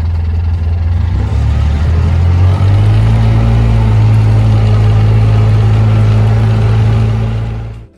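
A motor vehicle's engine running steadily, stepping up to a slightly higher speed about two and a half seconds in, then cutting off abruptly near the end.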